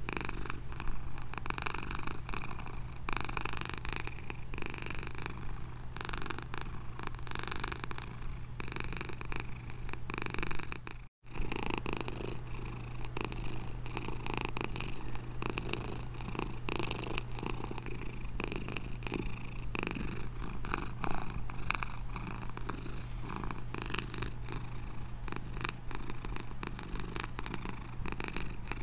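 Domestic cat purring steadily and continuously. The sound cuts out completely for a split second about eleven seconds in, then resumes.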